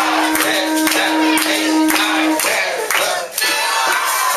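Conch shell blown in one long, steady note that stops about two and a half seconds in: a longest-blow contest attempt. A crowd cheers and claps over and after it.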